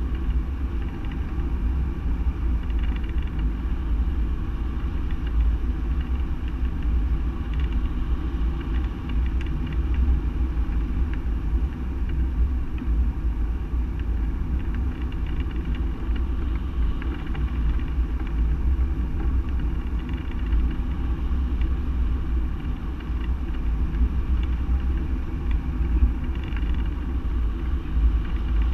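Wind rushing over the microphone of a wing-mounted camera on a hang glider in flight: a steady, deep rumble with buffeting.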